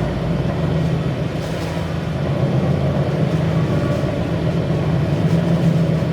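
Improvised sound-art performance on turntables and drums: a dense, steady low rumble with a noisy wash over it.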